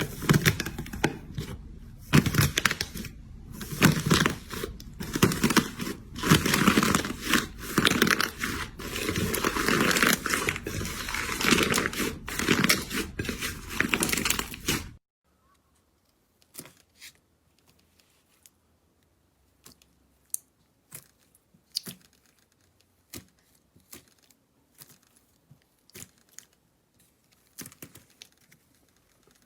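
Slime being squeezed and stretched by hand, making a dense run of crackles and pops. About halfway through it stops abruptly and gives way to sparse, quieter clicks and pops.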